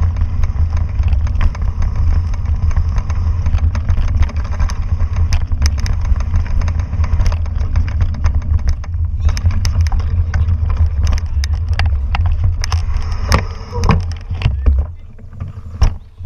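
Wind buffeting the microphone of a camera riding along on a mountain bike, with rattles and sharp knocks from the bike and tyres over a rough dirt trail. The wind noise drops away near the end.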